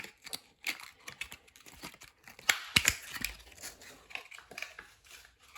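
Plastic doll packaging being handled and pulled at while a piece is worked free, making scattered clicks, taps and short crinkles, the busiest stretch between two and three seconds in.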